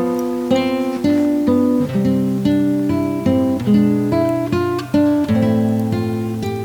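Acoustic guitar music: plucked and strummed chords and notes, each new chord about every half second before dying away.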